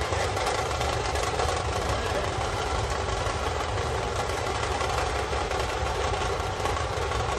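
Large outdoor crowd's dense, steady din of shouting and chanting, with a steady low rumble under it.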